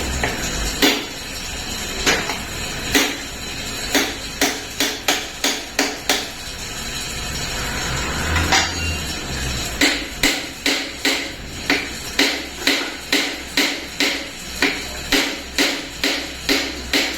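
Hammer striking repeatedly: scattered single blows at first, then a steady run of about two to three blows a second from about halfway through.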